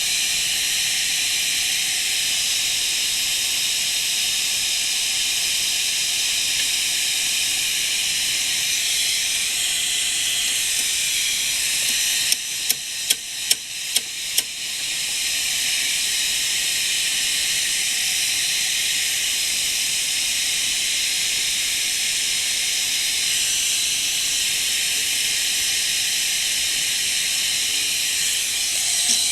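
Handheld hair dryer blowing steadily with a high, even hiss. About twelve seconds in it dips for a couple of seconds, with a quick run of five or six sharp clicks, then carries on as before.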